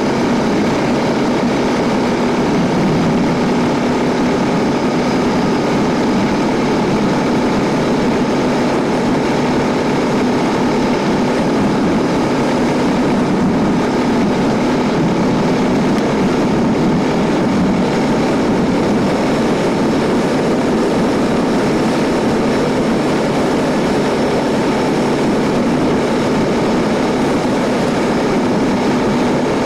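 Quad bike (ATV) engine running at a steady pace, an even drone that holds level throughout.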